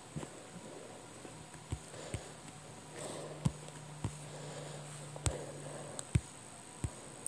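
Irregular light taps on a tablet touchscreen, about eight over several seconds, over a faint steady low hum.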